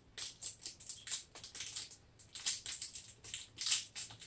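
Plastic Kit Kat wrapper crinkling as it is unwrapped and handled: quick, irregular crackles throughout, with louder bunches about midway and near the end.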